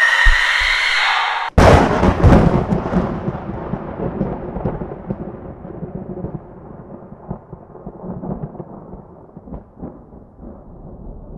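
A thunderclap: a sudden sharp crack about a second and a half in, then a long rolling rumble that slowly fades, with a few smaller crackles in it. Before the crack, a sustained music sting with a few low thumps cuts off abruptly.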